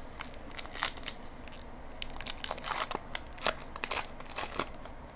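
A trading-card pack wrapper being torn open and crinkled: irregular bunches of sharp crackles, the loudest a little before one second in and again around three and a half seconds.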